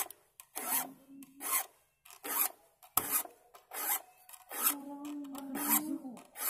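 Hand file rasping across the teeth of a handsaw blade, sharpening them, in short even strokes a little more than once a second.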